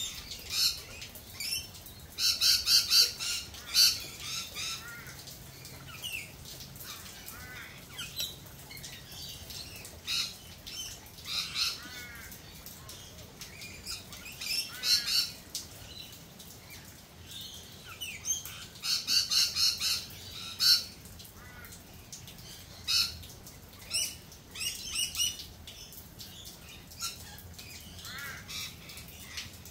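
Birds calling: loud bursts of rapid repeated calls a few seconds in, around fifteen seconds and around twenty seconds, with scattered single calls and short sliding whistled notes between.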